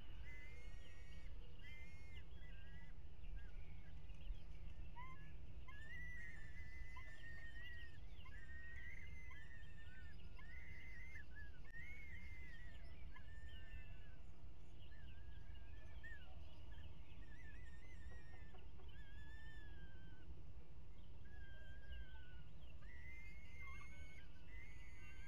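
Falcon chicks calling from the nest: a long run of short, thin, wavering peeps, one after another and sometimes several a second, over a steady low rumble.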